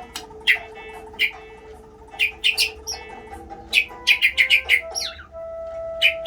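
Pet murai songbird chirping in short, sharp high notes. Near the end comes a quick run of chirps and one call that glides downward. Sustained music tones play underneath.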